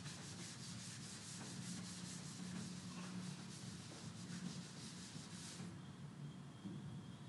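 Blackboard duster rubbing back and forth across a chalkboard, wiping off chalk writing in quick repeated strokes, then stopping about a second and a half before the end.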